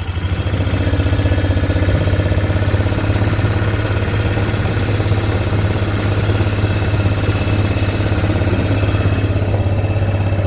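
Vehicle engine running steadily as the vehicle drives along, getting louder about half a second in as it moves off, with a steady low hum and a fine even pulse.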